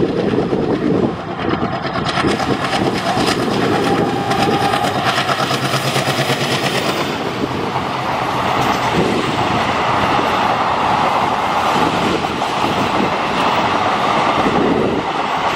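Diesel-hauled passenger train passing close by: an ALCo diesel locomotive with its coaches, the first half a rapid, even clatter as the locomotive and leading coaches go by, then a steady rumble of coach wheels on the rails.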